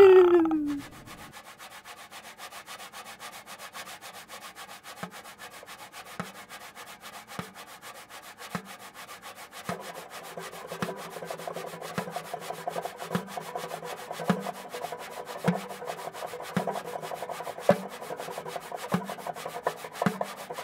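Experimental soundtrack: a dense, rapid scratchy rubbing texture, like sanding, with a soft low knock about once a second joining about five seconds in. About halfway through, steady sustained tones join underneath. A falling gliding tone fades out in the first second.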